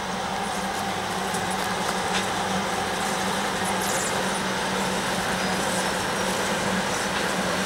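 Three XRN-class diesel-electric locomotives passing at the head of a loaded coal train, their diesel engines working with a steady low drone over the rumble of wheels on rail, getting slightly louder.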